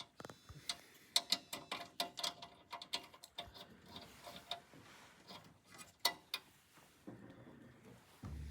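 Irregular run of small clicks and taps, several in quick succession, from hands and tools working small parts of a dental press furnace during assembly.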